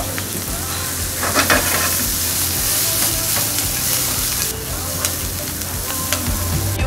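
Sliced onions and green stems sizzling in a frying pan while being stirred with tongs, the tongs clicking against the pan. There is a louder clatter about a second and a half in.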